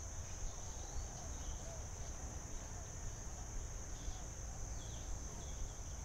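Steady high-pitched drone of insects, with a few faint, scattered chirps underneath.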